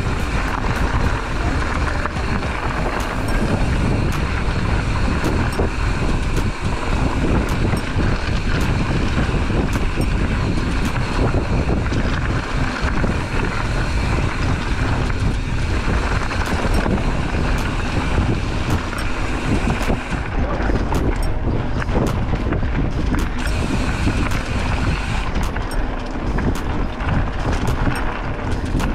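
Wind buffeting the camera microphone while riding a bicycle along a trail, mixed with the rattle and knocks of the bike over rough ground.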